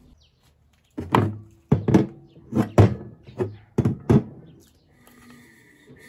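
A run of about nine heavy knocks, loosely in pairs, each leaving a short low ring behind it.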